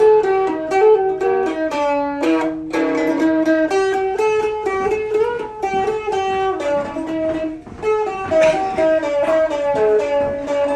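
Guitar music: a plucked single-note melody, one note after another at a steady pace.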